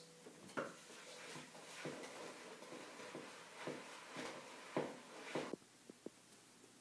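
Spoon stirring thick oatmeal cookie dough in a plastic mixing bowl: faint, irregular scrapes and knocks, with a few light clicks near the end.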